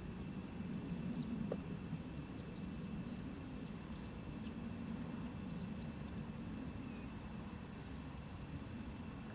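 Outdoor background: a steady low rumble with faint, scattered short chirps of small birds.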